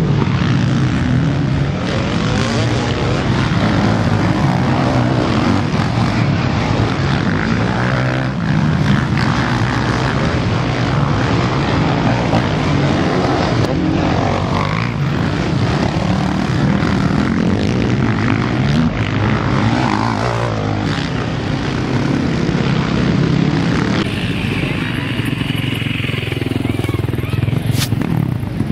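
Motocross bike engines running hard at high revs, the pitch rising and falling as the bikes race; the sound changes about four-fifths of the way through.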